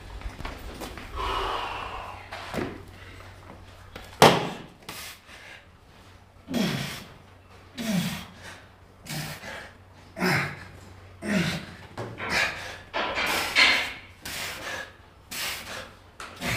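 A weightlifter straining through a set: a sharp knock of gym equipment about four seconds in. After it comes a run of short, forceful grunting exhalations, roughly one a second, each dropping in pitch, as with each rep.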